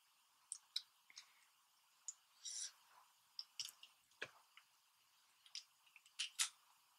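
Shells of boiled crawfish and crab being cracked and pulled apart by hand: scattered small, sharp cracks and clicks, with a louder crackle near the end.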